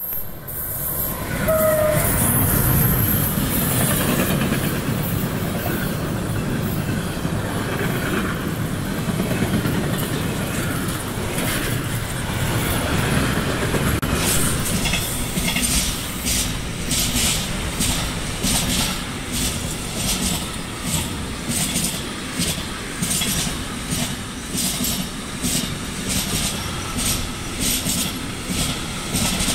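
Electric-hauled freight train passing close by at speed: the locomotives go by first, loudest a couple of seconds in, followed by a long steady rumble of wagons. In the second half a rhythmic clatter of wheels over the rail joints stands out.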